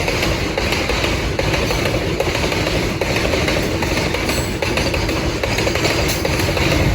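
Diesel-hauled, loaded coal freight train running past with a steady rumble of wheels on the track; no horn sounds.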